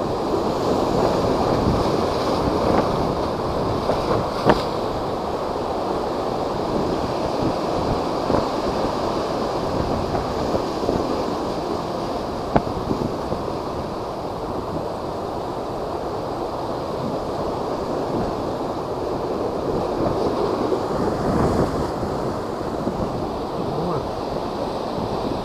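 Heavy storm surf from typhoon high waves, a continuous rushing wash of breaking water, with strong wind buffeting the microphone. A couple of brief sharp knocks stand out over it.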